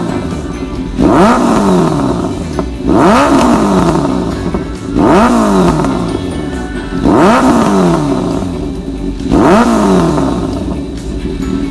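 Kawasaki ZRX1100's inline-four engine revved through an aftermarket conical GP-style silencer: five quick throttle blips about two seconds apart, each rising sharply in pitch and falling back to idle.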